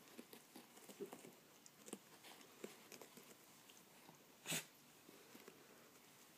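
Dachshund puppy wriggling against an older dachshund on carpet: faint scattered rustling and snuffling. There is one short, sharp snort about four and a half seconds in.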